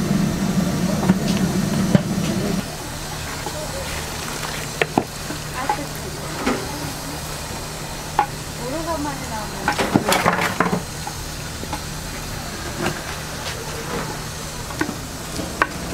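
Steaming stockpot of braised pig's feet bubbling with a steady hiss, while metal tongs clack sharply against the pot and the perforated steel draining tray as pieces are lifted out, most busily about ten seconds in. A louder low hum drops away about two and a half seconds in, and faint voices carry in the background.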